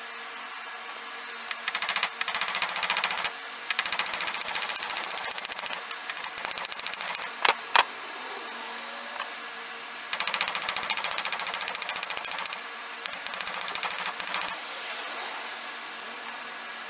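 Small hammer rapidly tapping the ends of brass pins to peen them over in a wooden knife handle, the work resting on a piece of railroad rail used as an anvil. The tapping comes in quick runs of one to two seconds with short pauses, and two harder single blows about halfway through.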